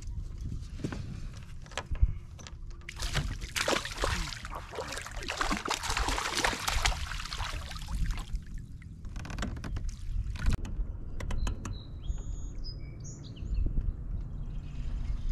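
Water splashing and sloshing as a hooked fish thrashes at the surface and is scooped into a landing net, over wind rumbling on the microphone. A bird chirps a few times near the end.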